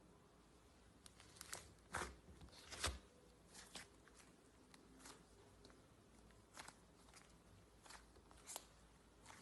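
Slime being handled: faint, irregular crunchy clicks and crackles, the strongest about two to three seconds in.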